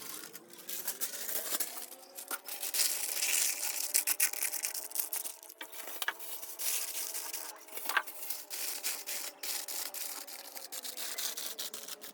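Kitchen food-preparation sounds: continuous rubbing and scraping with many small clicks, over a faint hum of several steady tones.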